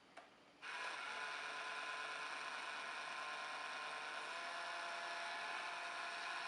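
Little Tikes STEM Jr. Tornado Tower toy's small electric motor whirring steadily as it spins the water in the tower, starting just over half a second in.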